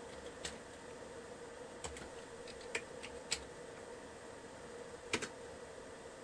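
Computer keyboard keys pressed one at a time, about six separate clicks with the last two close together about five seconds in, as logon credentials are typed at the Windows logon screen. A faint steady hum underneath.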